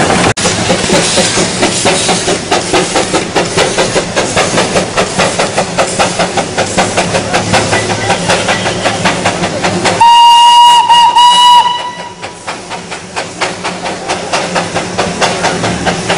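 Darjeeling Himalayan Railway narrow-gauge steam locomotive chuffing in a steady rhythm. About ten seconds in comes a single loud, steady whistle blast lasting nearly two seconds. After the whistle the chuffing continues more faintly.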